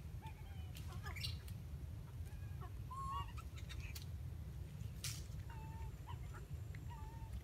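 Scattered short, high animal calls: squeaky chirps and brief falling notes, one sweeping sharply upward about a second in. They sit over a steady low rumble, with a few sharp clicks around four and five seconds in.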